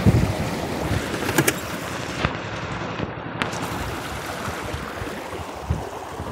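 Wind buffeting the microphone over rushing water in a small sailboat's wake, with a few sharp clicks.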